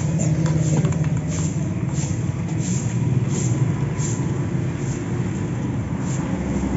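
Steady low machine rumble with a light high tick repeating roughly every two-thirds of a second.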